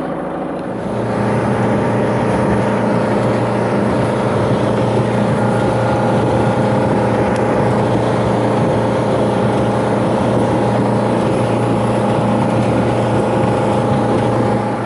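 Motorboat engine running steadily under way, with a steady rushing hiss over it. It gets louder about a second in and then holds an even pitch.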